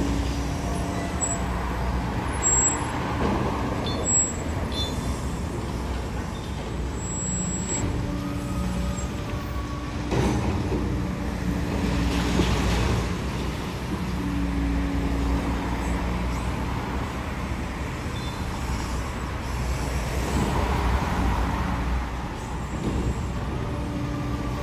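A high-reach demolition excavator's diesel engine running while its jaw crushes a concrete building, with a few crunches of breaking and falling concrete, mixed with passing road traffic.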